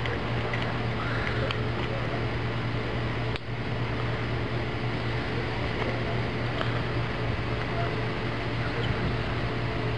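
A steady low mechanical hum under a broad hiss, with a brief drop about three and a half seconds in.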